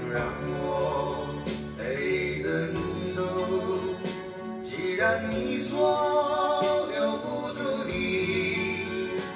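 A recorded song with a singing voice over instruments, played through AER full-range drivers on open baffles driven by a 300B valve amplifier, picked up in the listening room.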